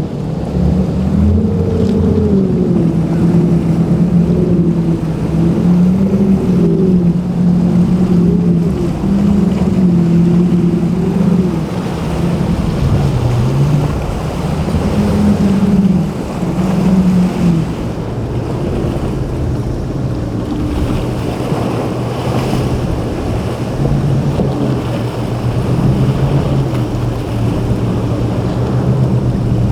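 Boat engines running through rough inlet water, their pitch wavering up and down as the throttle changes, over a steady wash of waves and wind on the microphone. About two-thirds of the way in, a lower, steadier engine tone takes over.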